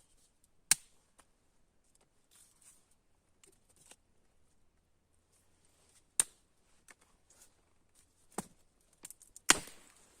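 Campfire crackling: a few sharp pops of burning wood scattered over a faint hiss, the loudest crack near the end.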